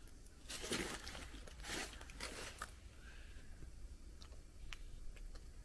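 Footsteps crunching on dry leaves and broken wood and plaster debris: three crunches in the first three seconds, then a few faint ticks.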